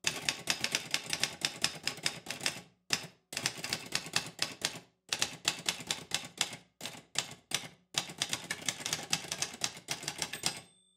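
Manual typewriter being typed on, with quick runs of key strikes several times a second, broken by short pauses.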